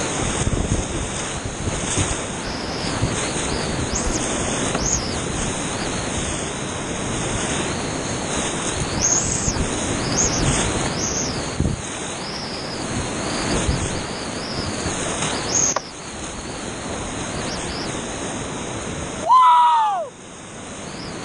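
Whitewater rushing loud and close around a kayak running steep rapids, heard on a helmet-mounted camera with water splashing on the microphone. Near the end, a short loud call falls in pitch and cuts through the water noise.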